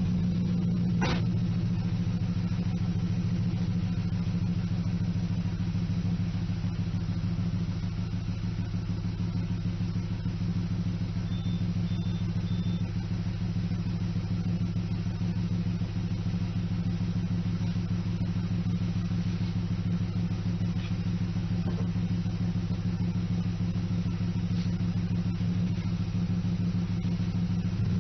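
BMW E92 320i four-cylinder engine running at a steady idle through a custom-built dual exhaust, a low even drone. A short click about a second in.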